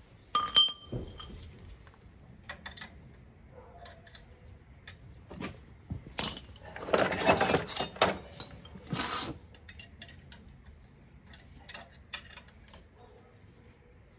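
Metal hand tools and parts clinking and clattering, with one ringing clink about half a second in and a few seconds of denser clattering around the middle, amid scattered ticks and knocks.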